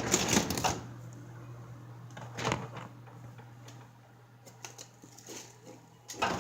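Clattering and clicking handling noises, loudest in the first second and again briefly around the middle, over a steady low hum that stops shortly before the end.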